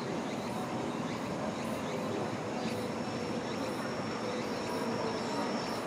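Steady distant vehicle rumble, with a faint high whine from about halfway through.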